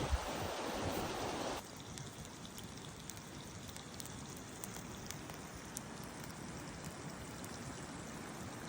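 River water flowing, an even rushing hiss. About a second and a half in it drops suddenly to a quieter, steadier wash with a few faint ticks.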